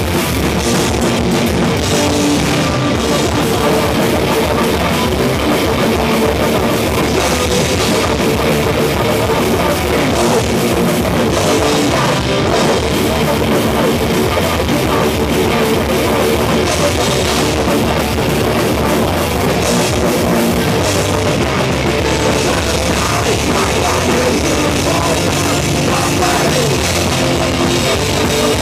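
Live crossover thrash band playing loud and fast: distorted electric guitars over a drum kit, with the vocalist shouting into the microphone.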